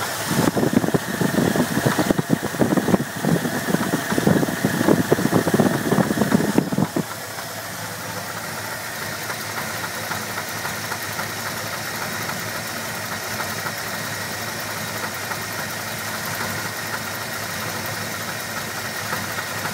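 Ford 351 Windsor V8 engine running with an unexplained noise that a freshly replaced fuel pump has not cured. For about the first seven seconds the sound is louder and rougher, with rapid uneven pulses. It then drops suddenly to a quieter, steadier run.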